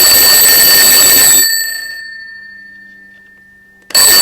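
Twin-bell alarm clock ringing loudly, its hammer rattling rapidly between the bells. It stops about a second and a half in, the bells ringing on and fading, then starts ringing again just before the end.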